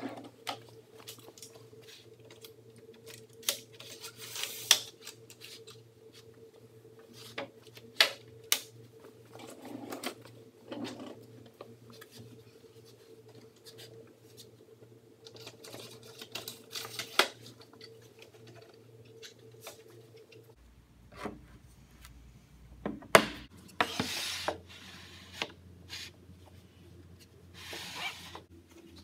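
Wooden jig parts and a wooden crosscut fence being handled and set down on a perforated worktop: scattered knocks and clicks with some short sliding rubs, over a steady low hum that changes abruptly about two-thirds of the way in.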